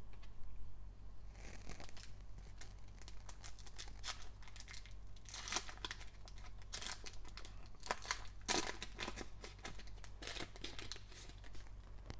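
Foil wrapper of a trading-card pack being torn open and crinkled by gloved hands: a run of crackles and rips starting about a second and a half in, loudest about five and a half and eight and a half seconds in.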